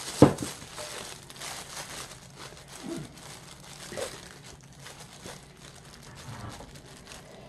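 Plastic disposable glove crinkling and dried pollack strips rustling as they are tossed by hand in thick gochujang sauce in a pan. A sharp knock sounds about a quarter second in, followed by irregular rustling.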